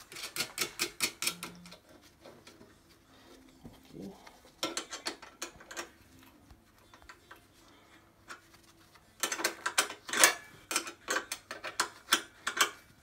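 Ratchet wrench clicking in quick runs as a nut is tightened: a burst in the first couple of seconds, another around the middle, and a longer, louder run in the last few seconds.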